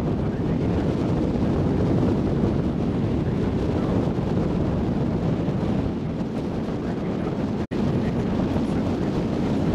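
A tour boat's engine runs steadily under wind buffeting the microphone. The sound drops out for an instant about eight seconds in.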